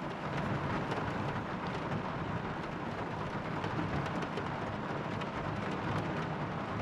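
Heavy rain falling on a car's roof: a steady hiss dotted with many small raindrop ticks.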